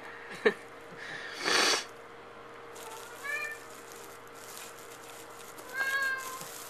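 Cat meowing twice, shut in and wanting to be let out. A sharp knock and a short scraping rattle come in the first two seconds.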